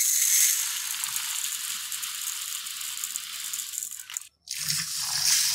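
Dry split moong dal (yellow mung lentils) poured into a plastic bowl: a steady rattling hiss of grains hitting the bowl and each other, loudest at first and thinning out until it stops about four seconds in. Shortly after, tap water starts running into the bowl.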